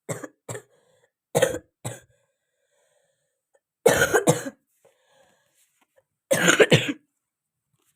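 A girl with a cold coughing: four short coughs in the first two seconds, then two longer bouts of coughing about four and six and a half seconds in.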